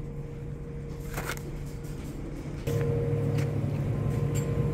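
Steady low electrical hum of supermarket refrigerated display cases, with a faint constant tone. It grows clearly louder a little past halfway, and a few faint clicks sound over it.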